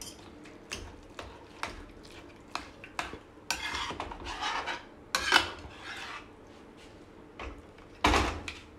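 Steel spatula scraping and knocking against a steel kadhai as a thick vegetable mixture is stirred and mashed, in irregular scrapes and taps. The loudest scrapes come about halfway through and near the end.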